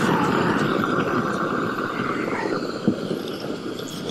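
Propane roofing torch burning steadily with a rushing noise, while a steel scraper scrapes heat-softened tar and silicone off a metal roof seam.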